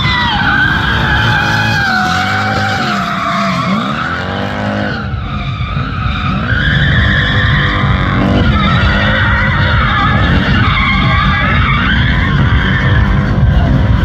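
Nissan 350Z with a swapped Lexus 4.3 L V8 drifting: the rear tyres squeal in long, wavering screeches over the V8's engine note. The squeal eases briefly about five seconds in, then comes back.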